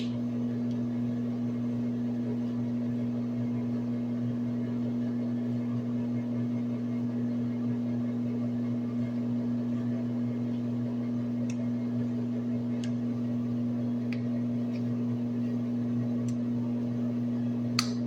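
A steady low electrical-sounding hum, with a few faint short clicks in the second half and a slightly sharper one near the end.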